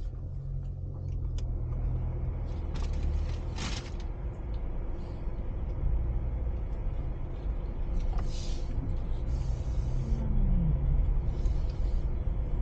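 Car running and moving, heard from inside the cabin: a steady low engine and road rumble that grows a little louder partway through, with a few brief rustles.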